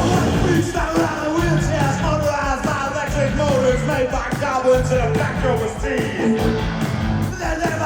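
Post-punk rock band playing live through a festival PA: drums and bass keep a steady driving beat, with a wavering melodic lead line over it.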